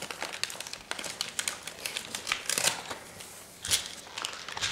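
Gift wrapping paper and a crinkly plastic or foil wrapper rustling and crumpling as they are handled, in irregular sharp crackles.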